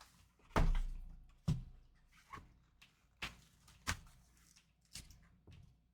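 Cardboard trading-card box being opened and handled as the cards are pulled out: a series of irregular knocks and taps with light rustling between them, the loudest about half a second in.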